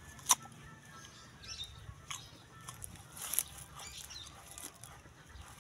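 A crisp bite into a raw young green mango just after the start, followed by wet crunching and chewing with mouth smacks.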